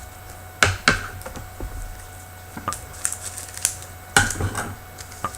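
Trading cards and packs being handled in a box break: a string of sharp clicks and taps, several in quick pairs, with the loudest about half a second and four seconds in.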